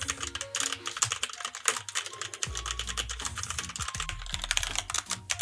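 Typing on a Genesis Thor 400 mechanical keyboard with Kailh Red linear switches: a quick, irregular run of key clicks and clacks. It is gentle for a mechanical keyboard, but still plainly audible.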